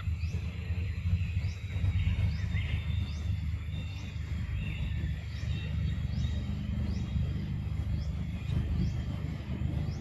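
Outdoor ambience: a steady low rumble under a short, high, falling chirp that repeats about every three-quarters of a second, with faint bird calls behind.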